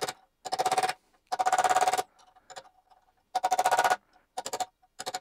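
Power drill run in short bursts, chipping at a broken bolt seized in an aluminium thread. Each burst of about half a second is a fast rattling buzz with a steady whine, repeated five or six times with short pauses, the last ones shorter.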